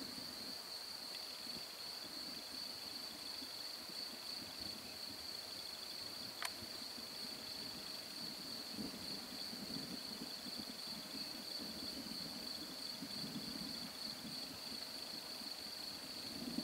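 Crickets chirring steadily in a high, even tone, with faint low rumbling that swells and fades now and then.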